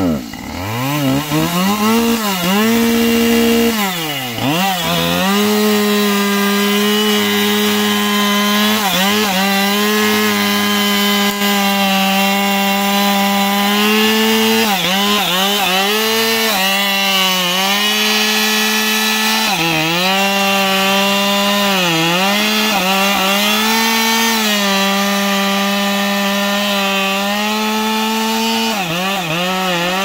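Two-stroke chainsaw cutting into the base of a large tree trunk. It revs up in the first second, then runs at a high, steady pitch that sags briefly several times as the chain bites into the wood and picks up again.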